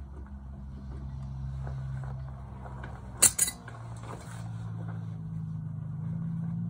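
Steady low hum of a running motor, its pitch shifting partway through, with one sharp metallic clink about three seconds in.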